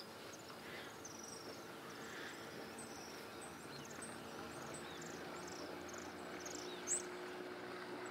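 Faint wild ambience: a steady insect drone under short, high bird chirps that repeat throughout, with one brief sharp click near the end.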